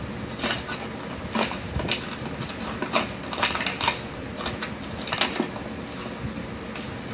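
Hard plastic toy stacking cups being handled and taken out of their box packaging: a run of irregular clicks and knocks, busiest a few seconds in, over a steady background hiss.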